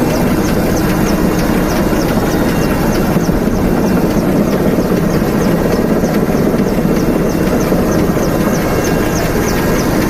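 Firefighting helicopter's engine and rotor noise heard from inside the cockpit, loud and steady, with a faint regular high ticking about three or four times a second.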